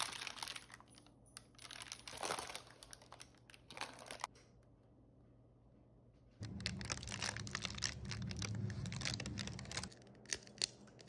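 Parchment paper crinkling and rustling in bursts as cookie dough is pushed and spread over it with a spatula. A denser, steady run of crackling with a low hum follows at about six and a half seconds and stops about three seconds later, then a few sharp ticks.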